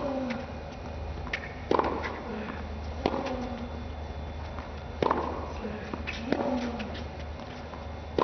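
Tennis rally on a hard court: a racket strikes the ball about every one and a half seconds, six hits in all, each followed by a short grunt that falls in pitch.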